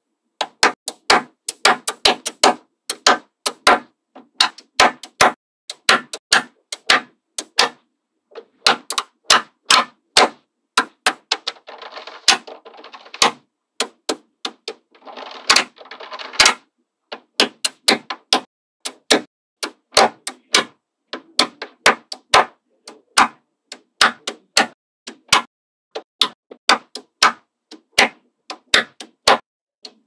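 Small magnetic balls clicking as slabs of them are snapped onto a magnet-ball block: sharp clicks in quick, irregular succession, often two or three a second. Twice partway through comes a longer, denser rattling clatter of many balls.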